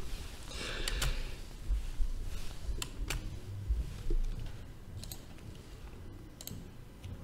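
Low room noise with a few faint, scattered clicks.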